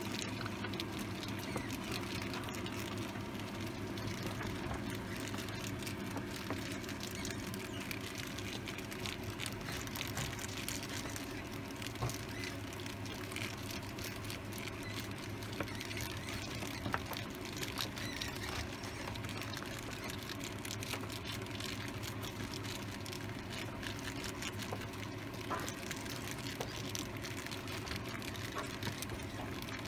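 Many young rats scrabbling and moving about in wood-shaving bedding, a dense, irregular patter of small scratches and rustles over a steady low hum.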